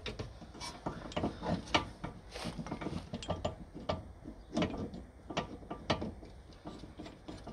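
Rear brake caliper piston being wound back into its bore with a caliper wind-back tool: a string of irregular, sharp metallic clicks and ratchet-like ticks as the tool is turned.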